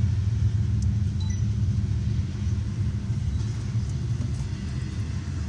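Low, steady rumble of a car heard from inside the cabin, easing off slightly toward the end.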